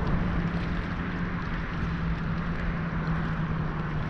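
A distant motor drones at a steady low pitch and fades out near the end, over a steady wash of wind and water noise.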